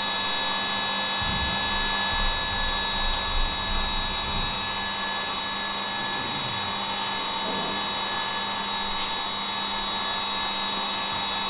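Desktop CNC milling machine's spindle running with its end mill cutting aluminium under flood coolant: a steady whine of several high tones over a low hum.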